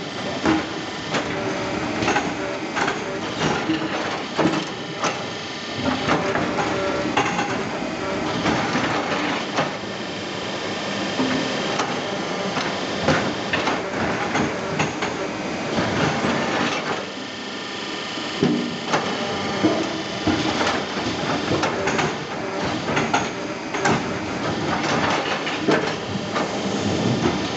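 Log debarker machine running, stripping bark from sengon logs: a continuous mechanical clatter with frequent irregular knocks and cracks of wood and bark.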